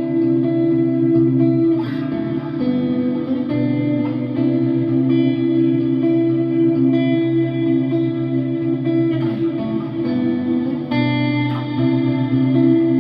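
Electric guitar, a 1996 Ibanez Talman with Lambertone pickups in the middle position (Crema neck and Grinder bridge together), playing slow ringing chords with an ambient, reverb-heavy effects tone. A new chord is struck about two seconds in, and twice more near the end.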